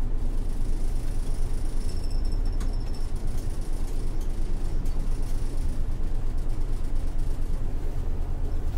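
Isuzu Erga city bus's 6HK1-TCC turbo-diesel engine running, heard from inside the cabin as a steady low rumble.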